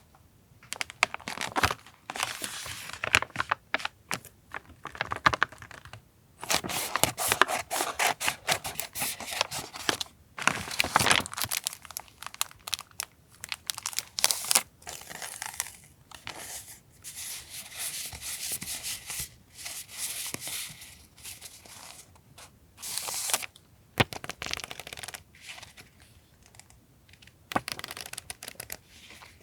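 Paper and packaging being handled close up: irregular crinkling, rustling and tearing strokes.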